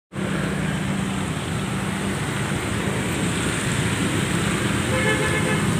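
Dense road traffic on a city avenue: a steady wash of car and motorcycle engines and tyres with a low engine hum throughout. About five seconds in, a few short pitched tones cut in over it.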